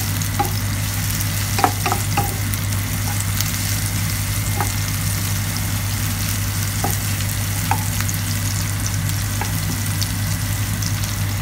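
Sliced white onion, garlic and ginger sizzling in hot oil in a nonstick frying pan while a wooden spatula stirs them, with a few light taps of the spatula against the pan. A steady low hum runs underneath.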